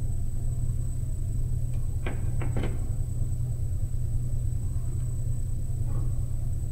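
Steady low hum throughout, with a short cluster of three or four crackling clicks about two seconds in as electrical tape is pulled from its roll.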